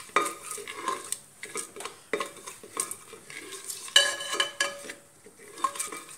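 Metal ladle scraping and clinking against the bottom and sides of a pressure cooker as whole spices are stirred in ghee, in irregular knocks and scrapes, the loudest clank about four seconds in.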